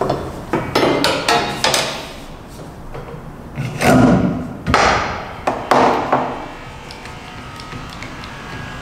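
Welded aluminium flashing frame knocking and rattling against the aluminium-clad truck body as it is pushed up into the opening. A quick run of sharp knocks comes in the first two seconds, then louder, longer knocks about four to six seconds in.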